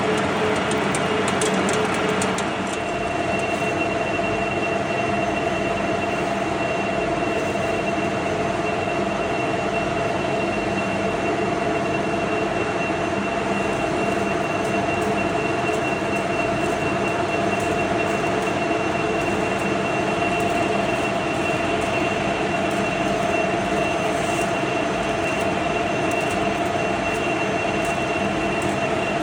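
DIP 500 heavy lathe cutting a large metal housing, a steady machining noise with a constant high whine that comes in about two seconds in.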